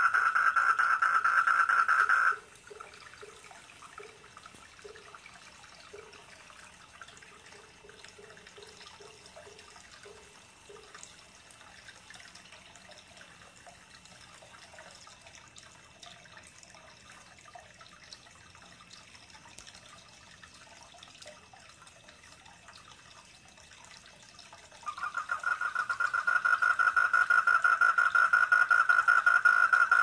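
Loud, fast-pulsed trilling of calling tree frogs (four-lined tree frog, Polypedates leucomystax). It cuts off about two seconds in and starts up again near the end. In between there is soft trickling water and a short run of faint low croaks.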